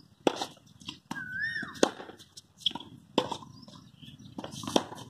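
Tennis ball struck by rackets in a baseline rally: a sharp pop about every one and a half seconds, four loud strikes and one fainter one.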